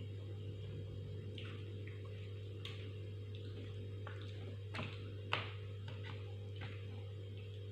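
Eating sounds close to the microphone: scattered wet mouth clicks and smacks while chewing, the sharpest a click about five seconds in, over a steady low hum.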